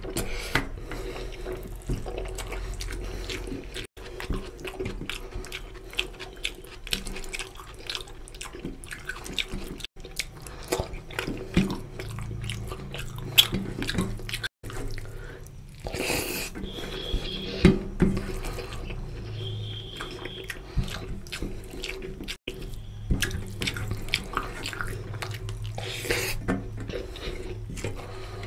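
Close-up wet eating sounds: fingers squishing and mixing rice with oily mutton curry on a steel plate, and chewing of mouthfuls, with many sharp, irregular wet clicks.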